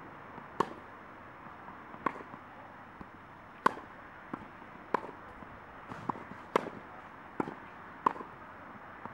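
Tennis balls struck with a racket: a sharp pop about every second and a half, with fainter knocks between, as in a groundstroke rally.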